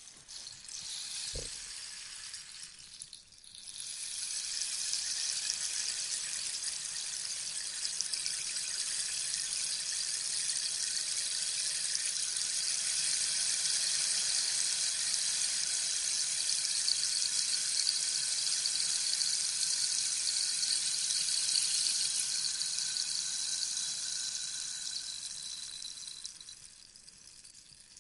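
Rainstick being tipped, its loose filling trickling down over the pins inside the tube in a rain-like patter. A short pour at the start, then after a brief pause a long pour of about twenty seconds that fades away, and a new pour begins at the very end.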